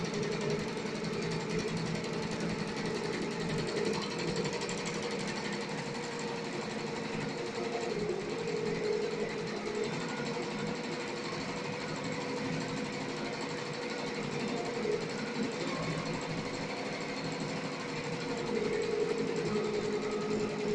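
Yinghe computerized multi-needle embroidery machine stitching at speed: a fast, steady mechanical rattle of the needle bar with a steady hum underneath.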